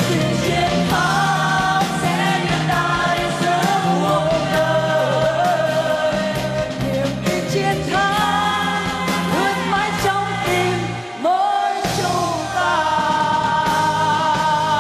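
A woman singing the lead of a pop song live over instrumental backing. The bass drops out briefly about eleven seconds in.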